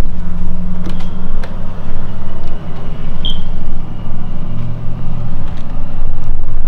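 A steady, loud, low mechanical drone like a running engine, with a few light clicks and a short high squeak about three seconds in.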